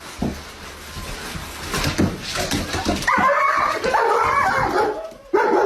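A dog whining in long, wavering calls, starting about three seconds in, after a few seconds of knocks and scuffling.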